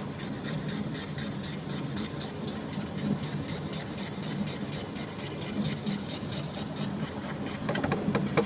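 A sharp metal rod driven by a K8200 3D printer scraping marker ink off copper-clad board: a continuous rasping scratch over a steady low hum, with sharper clicks near the end.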